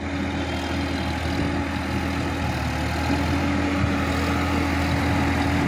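Sonalika DI-50 RX tractor's diesel engine running steadily as the tractor drives slowly over mud, a constant low hum that grows slightly louder as it approaches.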